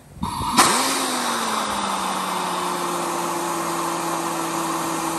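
Ingersoll Rand 1-1/2-inch drive pneumatic impact wrench running free with nothing on its drive. A hiss of air comes first, the motor then spins up with a sharp burst about half a second in, and it settles into a steady whine over loud rushing exhaust air.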